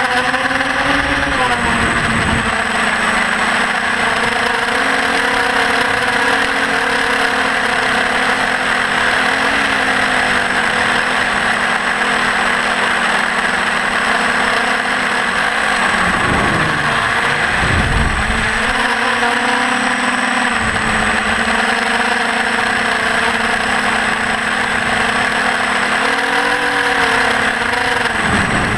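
TBS Discovery quadcopter's electric motors and propellers whining, with the pitch wavering over a loud rushing hiss. Past halfway the pitch drops sharply and climbs back a couple of times.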